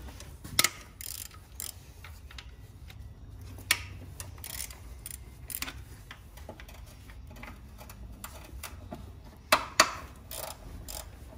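Hand ratchet with a deep 14 mm socket clicking as it loosens the engine-mount bracket bolts, with scattered metal clinks and a few sharper knocks, two of them close together near the end.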